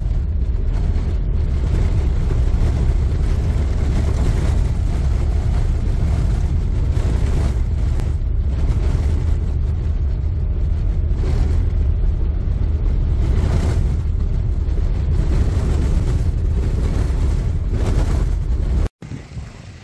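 Vehicle driving: a loud, steady rumble and rushing road noise, heaviest in the low end, that cuts off suddenly near the end.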